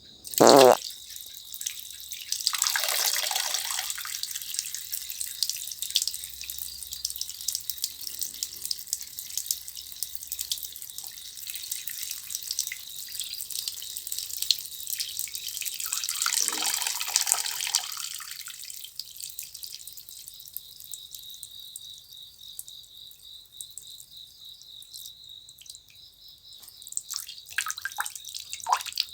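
A person urinating: a splashing trickle that starts about two seconds in, swells twice and tails off into a few drips near the end. A steady high chirring of insects runs underneath, and a short loud rasp comes right at the start.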